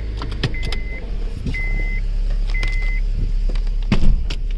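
A 2012 Honda Accord's dashboard warning chime beeping about once a second, the last beep ending about three seconds in, over a low steady rumble. Clicks from inside the car, and a louder thump about four seconds in.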